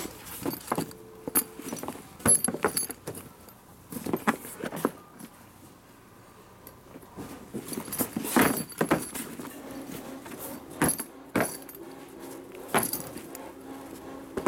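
A nylon tool bag being handled: the fabric rustles while metal zipper pulls and hardware clink, with irregular clicks and knocks and a longer swish about eight seconds in.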